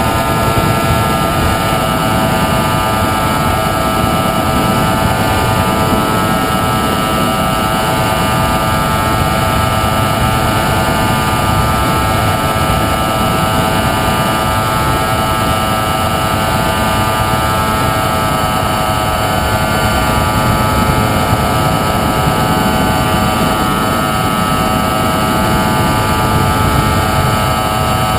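Radio-controlled FPV plane's motor and propeller running with a steady whine, heard from on board over constant wind rush.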